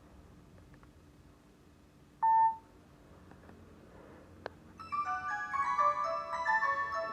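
Nokia 220 phone sounding one short beep about two seconds in, then a single click, then a polyphonic ringtone melody of quick overlapping notes starting about five seconds in.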